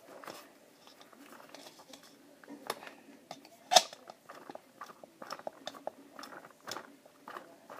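A spoon handle tapping and scraping inside a plastic bottle-top funnel as filling is pushed down into a balloon: irregular sharp clicks and crunchy scrapes, the loudest knock a little under four seconds in.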